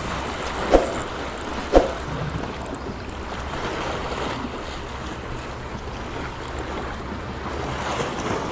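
Sea water and wind noise on the microphone, a steady rushing haze, with two sharp knocks about a second apart within the first two seconds.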